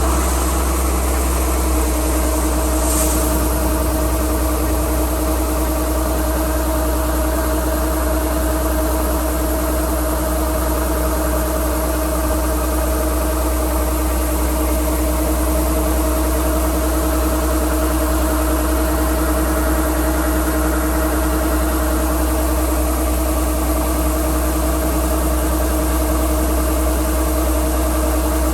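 Kubota DC-105X combine harvester's engine running steadily at constant speed, a continuous even hum with a strong low rumble.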